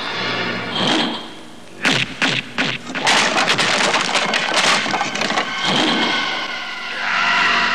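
Three or four sharp cracks and thumps about two seconds in, followed by a few seconds of dense, rapid crackling.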